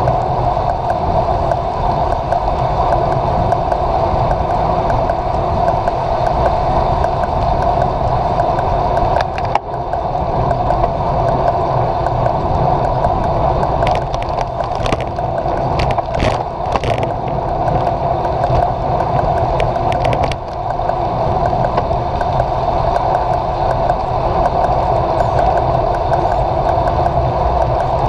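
Steady rush of wind and road noise picked up by a handlebar-mounted action camera on a moving road bike, with a few short sharp clicks or rattles about halfway through.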